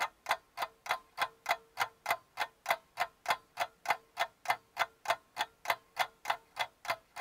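A metronome click track ticking steadily, about three clicks a second, before the band starts playing.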